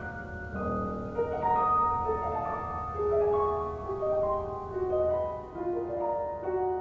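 Background music: a slow piano melody of held notes.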